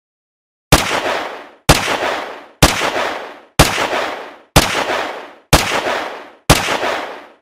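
Gunshot sound effect: seven single shots fired at an even pace of about one a second, each a sharp crack followed by a decaying echoing tail.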